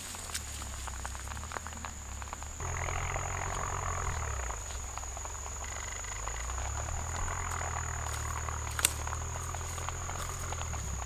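Insects chirring in one steady high-pitched tone, over a low rumble, with a single sharp click about nine seconds in.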